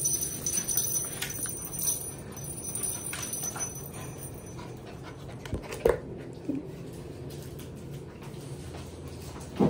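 11-week-old puppies playing and scuffling over toys, with a few short whimpers and a brief louder cry near the end.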